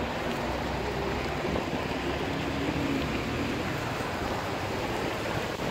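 Cars driving along a rain-wet road: a steady hiss of tyres on wet asphalt with a low engine hum from the passing traffic.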